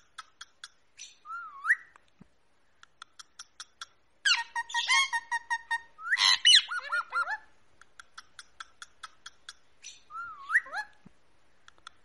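Ringneck parakeets calling: a quick run of short sharp chips mixed with whistled notes that swoop up and down. From about four seconds in there is a louder burst of squawks and held whistles, which lasts about three seconds. A few more swooping whistles follow near the end.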